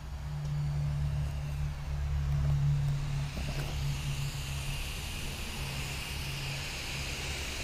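Small 12-volt fan running off a 12-volt battery and buzzing steadily, blowing hard, with a higher hiss coming in about halfway.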